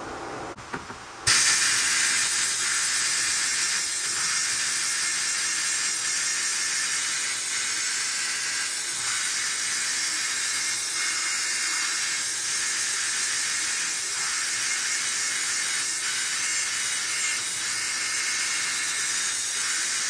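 Sandblasting cabinet's blast gun spraying abrasive onto metal brackets: a loud, steady hiss that starts suddenly about a second in and holds even. The blasting roughens the metal so powder coat will grab onto it.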